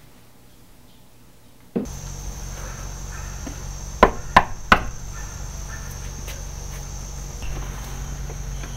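Three quick knocks of a fist on a wooden front door, all within about a second.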